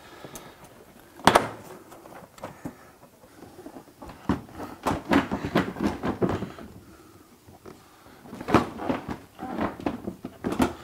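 Plastic front bumper cover of a Honda S2000 clicking and knocking as it is pulled and worked at a retaining tab that is still hung up. A sharp snap about a second in is the loudest sound, then two clusters of rattling knocks.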